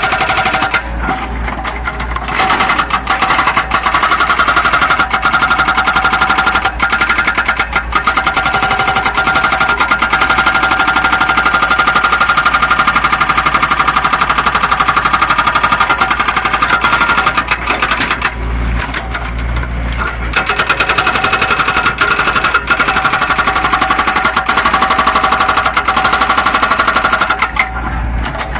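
Zoomlion excavator's diesel engine running hard, a fast rattling pulse with a steady high tone over it. It eases off briefly about a second in, again around eighteen seconds in, and near the end.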